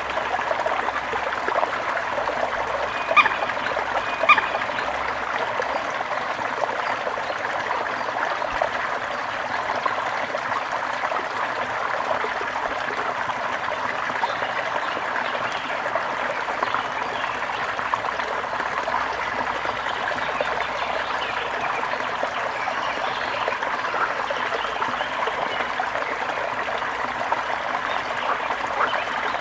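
Brook water trickling and babbling steadily over stones, a continuous even rush. Two brief, sharper sounds stand out about three and four seconds in.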